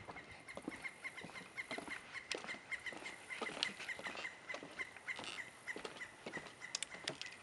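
Footsteps and small knocks on a concrete boardwalk, under a small animal's high chirp repeated steadily about five times a second.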